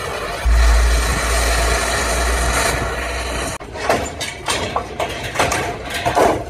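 A loud, steady low rumble with hiss for about three seconds, then, after an abrupt break, a series of sharp metal clanks and bangs as a cut-off piece of the old Bedford truck's cargo body is thrown down and hits the ground.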